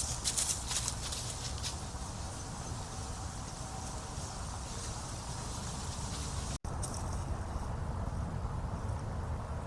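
Deer hooves crunching through dry leaves in a few quick steps that die away about a second and a half in, then a steady outdoor background of low rumble and hiss. The sound drops out for an instant about two-thirds of the way through.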